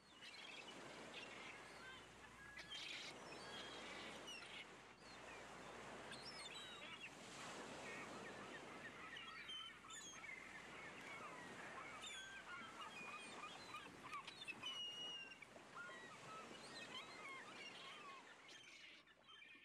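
Outdoor ambience of many birds calling in short chirps and squawks over a steady hiss, fading in at the start and fading out near the end.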